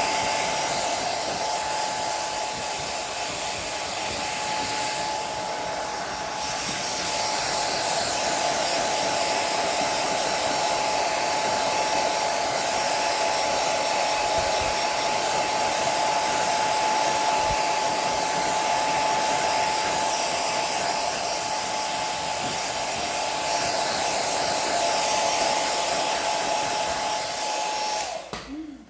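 Handheld hair dryer running steadily with a constant whine, switched off near the end.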